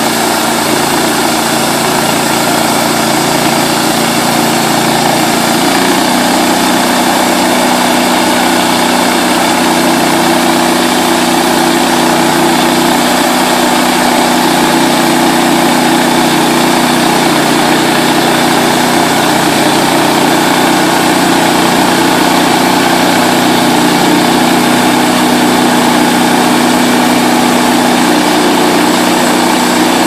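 Portable bandsaw mill's small gasoline engine running at speed while its band blade saws through a log, a loud steady drone with the hiss of the cut. Its tone shifts about six seconds in.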